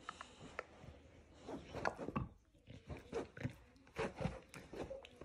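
Short, irregular noises from an English bulldog mouthing a plush toy.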